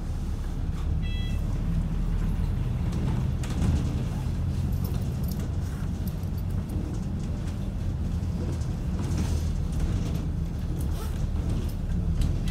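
MCV Evoseti-bodied double-decker bus driving along a street, heard from its upper deck: a steady low engine and road drone. A brief high electronic beep sounds about a second in.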